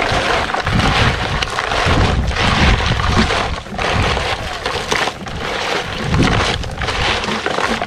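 Gusty wind buffeting the microphone with an uneven rumble, and crackling and cracking throughout.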